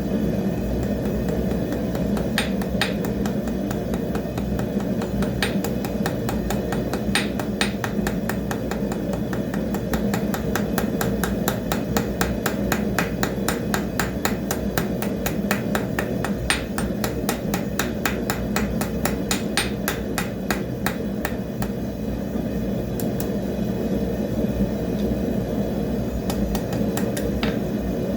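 Hand hammer striking a hot railroad spike on the anvil in a fast, even rhythm of ringing blows, rounding off the spike's shank, over a steady low roar.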